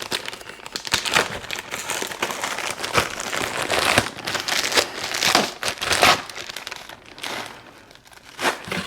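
Packaging crinkling and rustling as a hunting saddle is unwrapped, busy for about six seconds and then in fewer, scattered crinkles.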